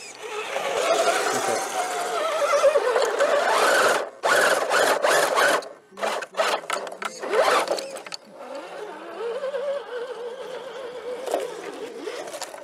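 Electric motor and drivetrain whine of a radio-controlled rock crawler, rising and falling in pitch as the throttle is worked while it climbs sandstone ledges. There are a few sharp clicks or knocks in the middle.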